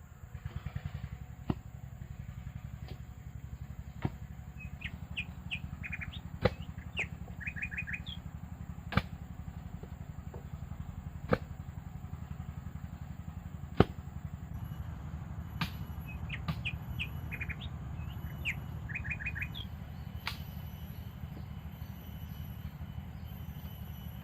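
Tropical forest ambience: small birds chirping in quick short runs, over a steady high insect-like whine. Sharp knocks come about every two and a half seconds for the first half.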